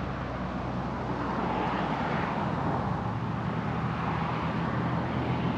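Steady low drone of an engine running, with an even wash of noise over it.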